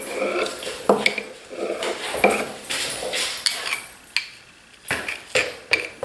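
The edge of one steel chisel scraped repeatedly along the back of another in short irregular strokes, metal rasping on metal, to shave off dried glue residue. A few sharp clicks come near the end.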